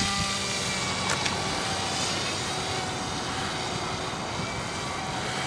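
Radio-controlled Wild Hawk trainer airplane in flight, its motor a faint, steady drone.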